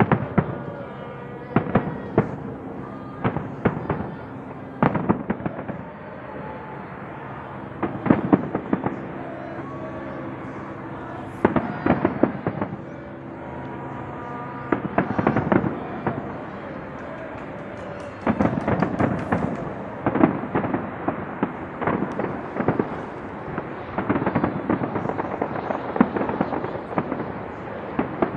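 Fireworks display: many sharp bangs at an irregular pace, some in quick crackling clusters, coming thicker and faster through the second half.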